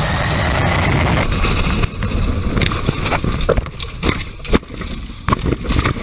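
Airliner jet engine exhaust blast rushing steadily. About a second in, it breaks into a jumble of knocks and bangs as a car tumbles over, heard from inside the car.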